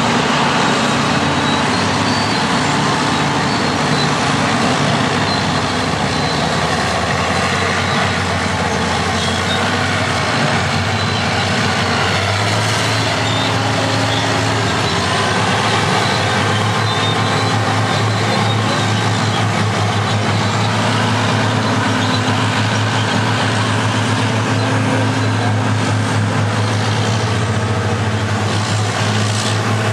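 Several classic diesel earthmoving machines, Caterpillar bulldozers, motor graders and scrapers, running and working together: a steady, loud mix of heavy engine noise whose engine notes shift every several seconds.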